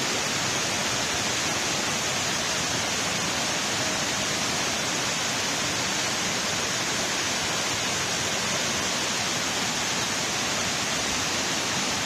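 Overflow from a full reservoir pouring down a concrete dam spillway and churning in the channel below: a steady, even rush of falling water.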